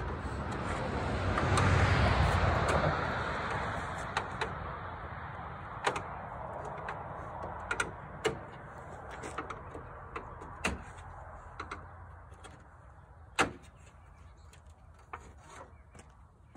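Sharp clicks and knocks, spaced a second or two apart, of a screwdriver prying at the rusted retaining clips of a Ford F-350's chrome plastic grille and the grille shifting against them. Over the first few seconds a broad rushing noise swells and fades.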